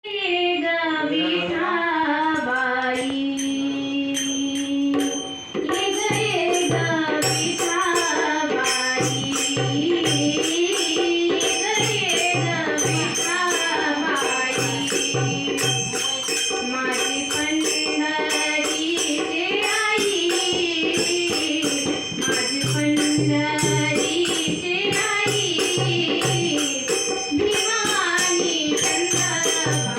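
Instrumental Indian devotional music: a gliding melody line over steady percussion, with a run of jingling strokes and low drum beats keeping the rhythm.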